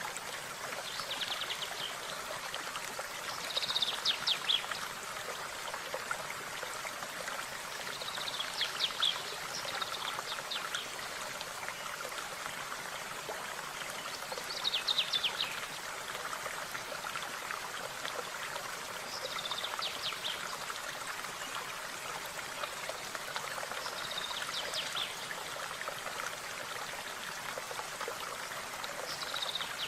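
A stream running steadily, with a small bird calling in short, high chirping phrases about every five seconds.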